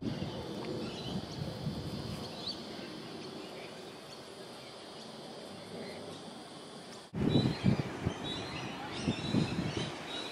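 Outdoor ambience with small birds chirping faintly in the background and low rumbling thumps. The sound changes abruptly about seven seconds in, after which the low thumps are louder.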